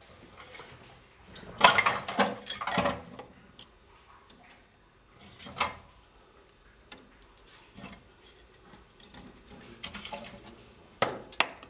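Split sticks of dry kindling being fed by hand into the firebox of the 03 Lilliput steam locomotive, knocking and clattering against the metal firebox opening and onto the grate. A cluster of knocks comes about two to three seconds in, single knocks follow, and there are two sharp clicks near the end.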